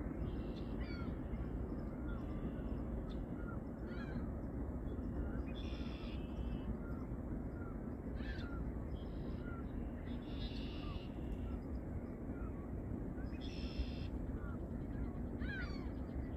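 Wild birds calling: harsh, scratchy calls about half a second long come every second or two, mixed with many short, quick chirps. Under them runs a steady low background noise.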